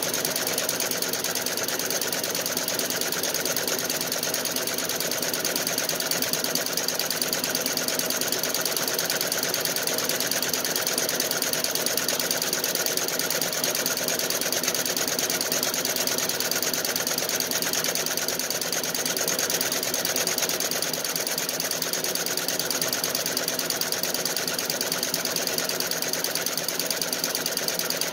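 Feiyue multi-needle embroidery machine stitching at speed: a steady, fast, even needle clatter that runs on without a break.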